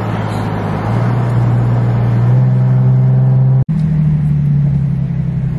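Car engine and road noise heard from inside the cabin while driving, the engine note rising slowly as the car gathers speed. About two-thirds of the way through the sound breaks off abruptly for an instant and comes back as a steady, slightly higher engine hum.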